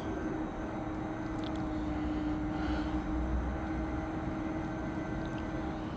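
Vehicle in motion: steady motor hum over low road rumble.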